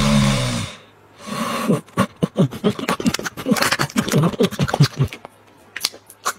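A Shiba Inu's snore, then, after a short pause, a long run of rapid, irregular sniffing, smacking and licking as the dog wakes to a piece of steak held at its nose, with a few last smacks near the end.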